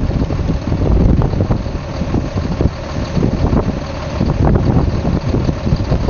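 A logging truck's diesel engine running, mixed with heavy wind buffeting the microphone in uneven gusts.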